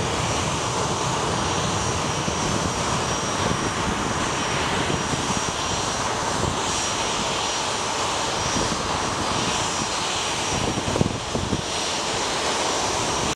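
Boeing P-8A Poseidon's twin CFM56 turbofan jet engines running at low taxi power, a steady roar with a high turbine whine over it. A brief low thump about eleven seconds in.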